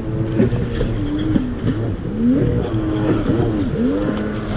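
Fishing reel whirring under load while a hooked fish is fought, its pitch sweeping up and down again and again as the line comes and goes, then steadier near the end. The hooked fish splashes at the surface about four seconds in.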